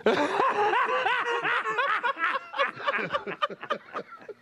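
A man laughing hard, a fast run of high-pitched laughs that tails off near the end.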